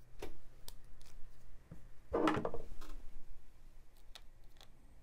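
Small scissors trimming a thin replacement flex cable strip: light clicks, and a short snipping scrape about two seconds in, with a faint steady hum underneath.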